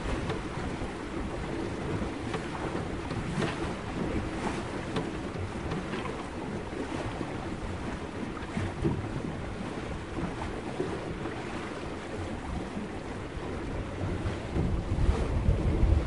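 Sea water rushing and lapping along a sailing boat's hull with wind, a steady wash with small splashes here and there. A low wind rumble grows louder near the end.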